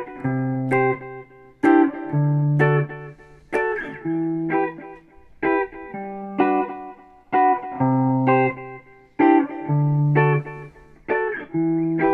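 Background music: plucked guitar picking a repeating melody over a bass line, with notes struck about every half second.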